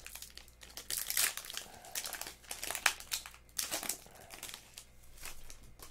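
Foil wrapper of a Pokémon trading card booster pack crinkling in irregular bursts as it is handled and pulled open by hand, with a sharper crackle about three seconds in.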